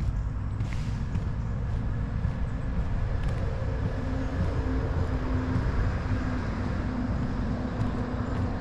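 A vehicle running: a steady low rumble with a faint, even hum and no breaks.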